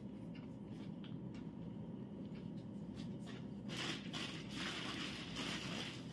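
Plastic shopping bag rustling and crinkling as hands reach into it, starting about three and a half seconds in, over a steady low hum.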